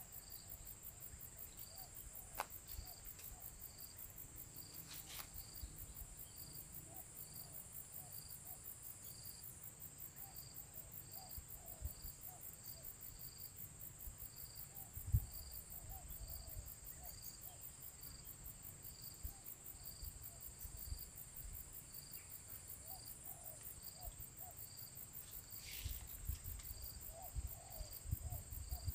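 Insects buzzing in a steady high-pitched chorus, with a soft regular chirp about once a second, and a faint bump about halfway.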